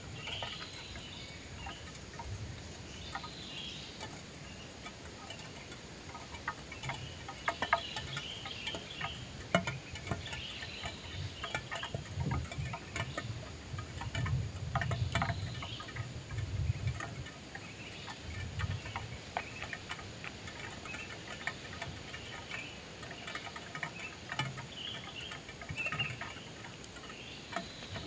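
Kingfisher nestlings in an earthen burrow making faint scattered ticks and short high chirps, with occasional low rumbles mixed in, heaviest around the middle.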